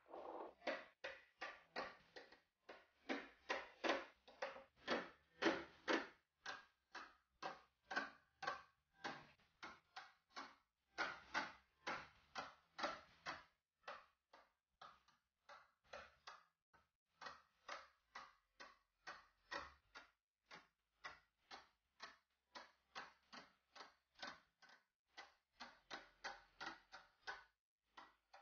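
Magnetic rods and steel balls of a magnetic building set clicking as they snap together: a long, quick, irregular series of sharp clicks, about two or three a second, thinning out briefly around the middle.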